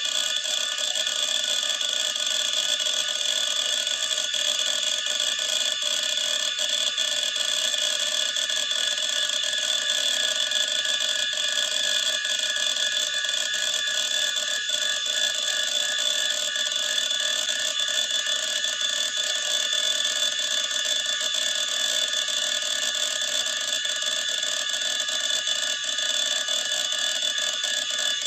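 Old PC hard disk drive spinning, with a steady high-pitched whine and faint irregular ticks from the heads.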